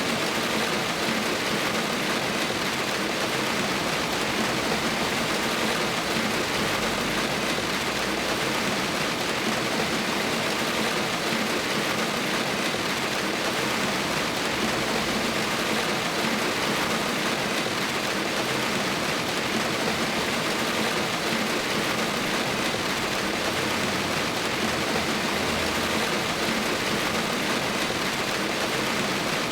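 Steady, even rain falling, a continuous hiss of drops without breaks.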